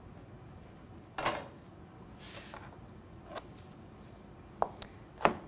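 A chef's knife knocking on a white plastic cutting board as a de-seeded serrano chile is chopped: one sharp knock about a second in, then a few lighter chops near the end.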